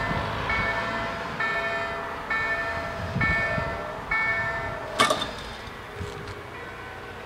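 Level-crossing warning bells ringing about once a second, five rings, while the crossing's barrier arms come down. About five seconds in, a sharp metallic clank as the barriers come to rest, and then the bells stop.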